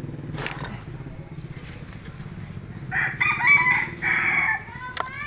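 A rooster crowing once, starting about three seconds in and lasting about a second and a half, over a steady low hum.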